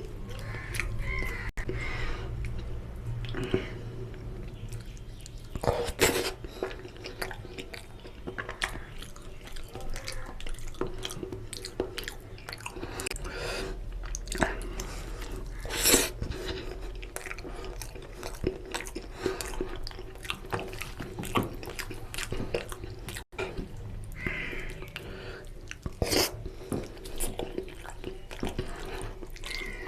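Close-miked chewing of soft, wet mutton offal curry with puri: wet mouth clicks and smacks, with a few louder smacks spread through.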